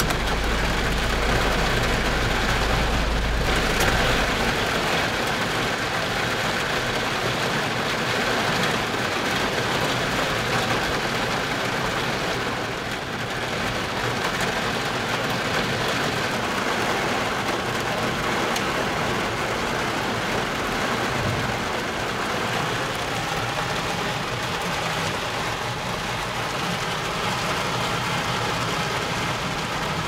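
Steady rain pouring down, with a deep low rumble under it for the first few seconds.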